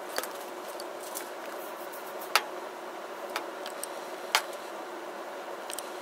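Camera handling noise: several sharp clicks and taps over a steady background hiss, the loudest two about two seconds apart, as the camera is moved and reframed.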